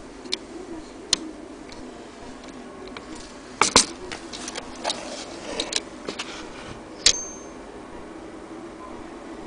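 Blickensderfer No. 7 typewriter being worked by hand: irregular sharp metallic clicks and clacks of its mechanism, bunched around the middle, with a loud click and a brief high ring about seven seconds in.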